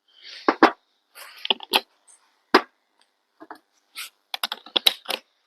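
Irregular clicks and knocks of hard tools and parts being handled, picked up and set down while a drill bit is fetched. The sharpest knock comes about halfway through, and a quick cluster of clicks comes near the end.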